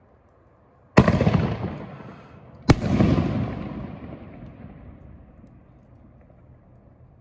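T-Sky YourTube 4-inch canister shell bursting in the air: two sharp bangs about a second and a half apart, each trailing off in a long echoing rumble.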